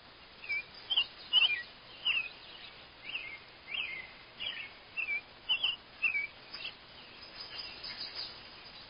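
A songbird calling: a quick run of short, high, down-slurred notes, about two a second, that goes on for about six seconds and then trails off into a few fainter notes.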